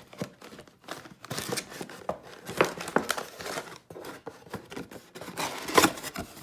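Plastic packaging being handled and opened, crinkling and crackling in irregular bursts, with the sharpest crackle near the end.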